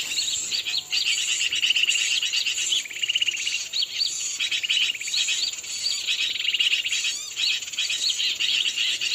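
A bird-lure MP3 of noisy birds, played from a speaker: dense, continuous, overlapping chirps and rapid twittering, used to call wild bulbuls down to lime sticks. A steady high insect drone runs underneath.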